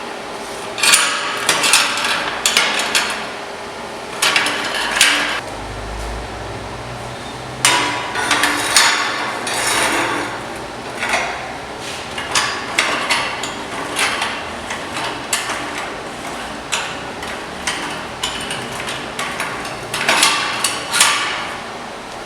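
Hammer striking metal parts, with irregular clusters of sharp blows and short pauses between them.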